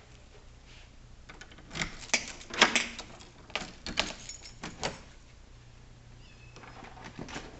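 Keys jangling and clicking in a door lock as the door is unlocked, a series of sharp metallic clicks loudest between about two and five seconds in. Near the end, a Siamese kitten gives faint, high meows.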